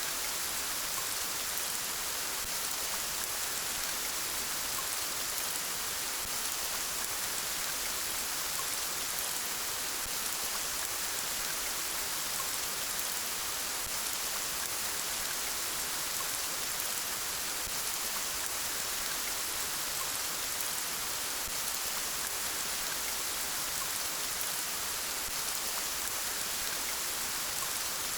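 Steady rainfall: an even hiss of many small drops hitting a surface, with no breaks or changes.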